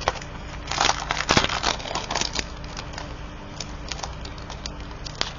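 Packaging rustling and crinkling, with irregular small clicks, as a cutting die is unwrapped by hand. The clicks are busiest during the first half.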